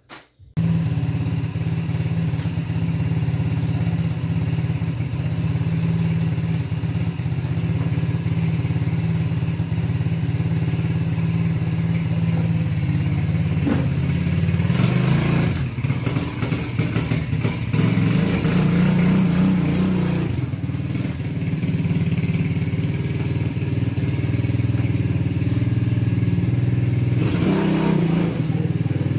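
ATV engine running at a steady idle, revved up a few times around the middle and once more near the end.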